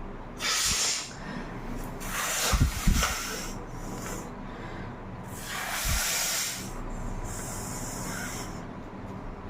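Four short hissing breaths close to the microphone, from a person with a head cold, with two low thumps about two and a half seconds in.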